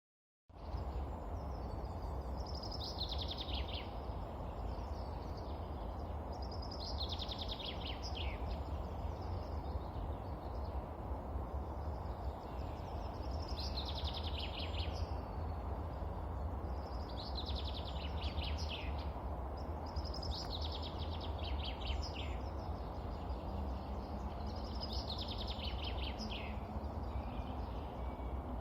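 A songbird repeating a short song phrase every few seconds, each phrase falling in pitch, over a steady low background rumble.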